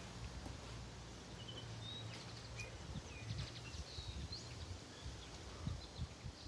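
Faint, scattered bird chirps, short calls with quick pitch slides, over a low outdoor rumble.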